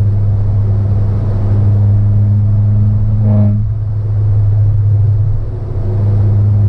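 Steady low drone of a 2015 Peugeot 308 THP's turbocharged engine and modified exhaust heard inside the cabin while cruising. The exhaust drone is loud enough on the highway that the owner finds it bothersome.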